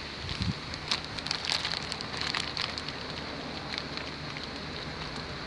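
A quick run of light crackles and ticks lasting about two seconds, then thinning out, over a steady high hiss.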